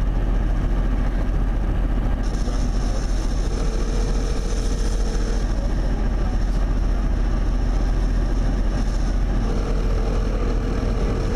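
Steady road and engine noise heard from inside a moving car. Over it, a phone's ringback tone plays through a speakerphone: two rings of about two seconds each, one in the middle and one near the end, while the call waits to be answered.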